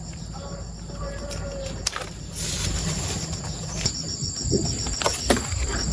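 Outdoor ambience dominated by insects: a steady high-pitched trill, joined about four seconds in by a high chirp pulsing about five times a second. A few sharp clicks or snaps break in, and a short whistle-like call sounds near the start.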